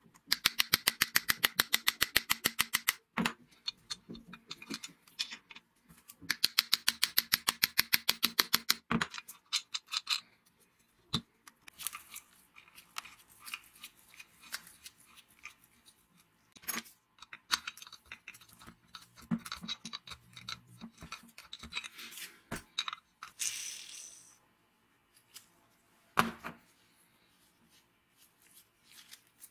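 Metal parts of a Siemens angle grinder being handled during reassembly: two runs of rapid, evenly spaced clicking, each lasting about three seconds, then irregular clinks and taps of small metal parts.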